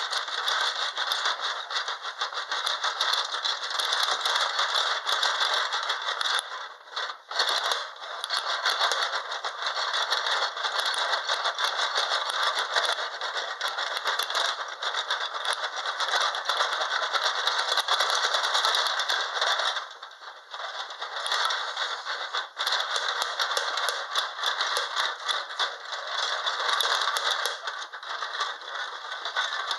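Plastic Sylvanian Families dollhouse and its small furniture and figures rattling and clattering continuously as the house is shaken in a simulated strong earthquake, with brief lulls about seven and twenty seconds in.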